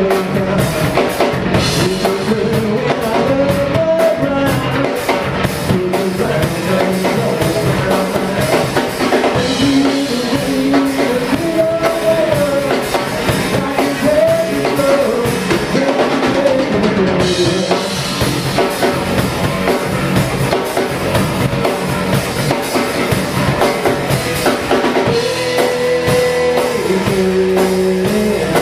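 Live rock trio playing a song: drum kit, electric bass and electric guitar together, with a steady beat at an even loud level.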